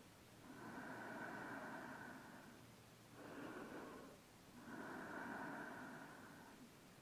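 A woman's slow, soft, audible breathing: two full breaths, each made of a short swell of about a second and a longer one of about two seconds.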